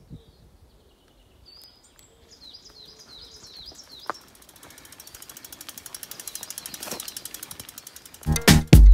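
Mountain bike's rear freewheel hub clicking rapidly as the rider coasts, swelling and then fading, after a few seconds of birds chirping. Music cuts in near the end.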